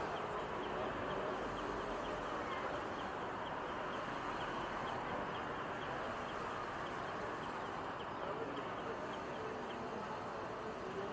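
City street traffic: the steady hum of a city bus and cars passing, with a short high chirp repeating about twice a second.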